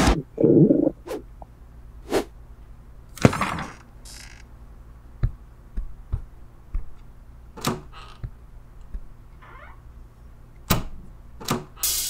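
A string of separate thumps and knocks, footsteps and a door being handled, about a dozen spread out over the stretch. A short rising squeak comes shortly before the last few knocks near the end.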